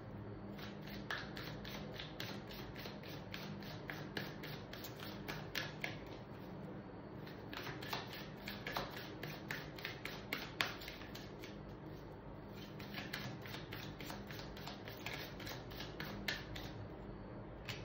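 A deck of tarot cards being shuffled by hand: quick runs of soft card clicks in three spells, with short pauses between them.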